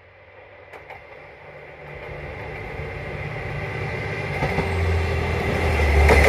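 Diesel train approaching: its engine rumble and rail noise grow steadily louder.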